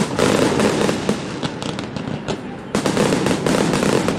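Aerial fireworks going off: a loud burst right at the start, followed by dense rapid crackling from glittering stars. A second loud volley comes in about two and three-quarter seconds in, with more crackling after it.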